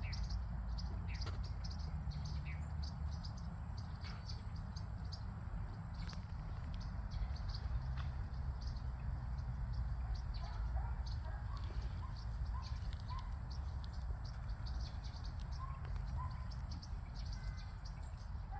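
Small birds chirping busily throughout, with a few short, lower calls in the second half, over a steady low rumble.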